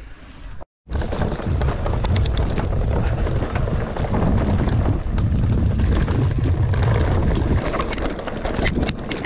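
Wind rumbling on the microphone during a mountain-bike ride, with the rattle and crunch of the bike and its tyres on a rough trail. It starts abruptly about a second in and stays loud throughout.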